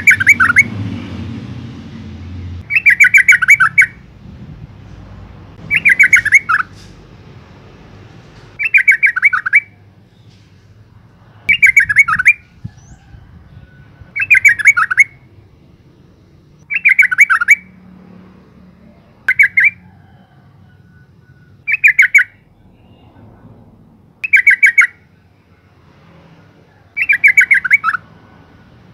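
Yellow-vented bulbul, a female by the uploader's account, calling over and over: loud, fast rattling chatters of about a second each, falling at the end, repeated about every two and a half to three seconds, around eleven times.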